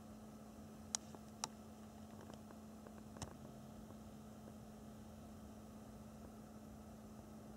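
Faint steady low hum over soft hiss, with three short sharp clicks: two about a second in, half a second apart, and a third a little after three seconds.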